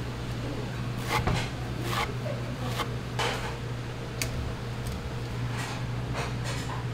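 Scattered knocks and clatters of kitchenware being handled, about eight in all, the loudest about a second in, over a steady low hum.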